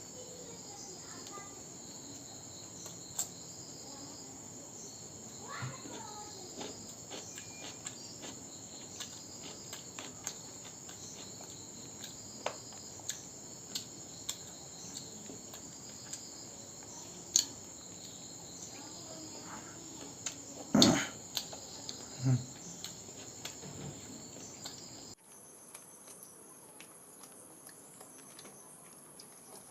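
Crickets chirring steadily at a high pitch, with scattered small clicks and knocks of eating and handling food and one louder knock about three-quarters of the way through. Near the end the chirring abruptly shifts to a higher pitch and the background drops.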